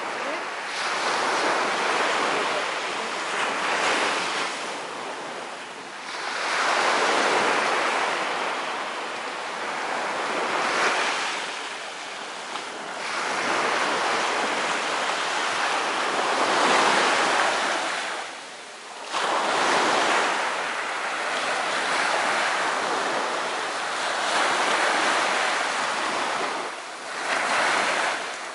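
Small sea waves breaking and washing up a sandy shore, the surf swelling and easing every three to four seconds, with some wind on the microphone.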